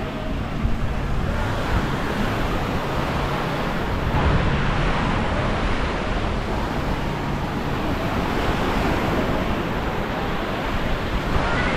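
Small waves washing steadily onto a sandy beach, with wind buffeting the microphone.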